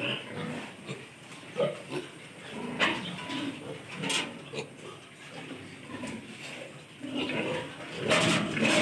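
A group of piglets grunting in short, scattered grunts, with a few sharp clicks in the middle. The grunting grows busier and louder near the end.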